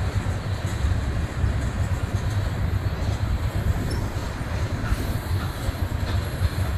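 Railroad tank cars of an ethanol freight train rolling past, a steady low rumble of steel wheels on the rails.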